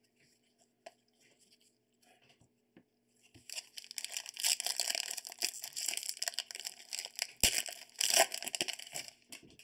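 Foil wrapper of a trading card pack crinkling and tearing as gloved hands open it, starting about three and a half seconds in and running in dense crackles, with a sharp knock a little after seven seconds.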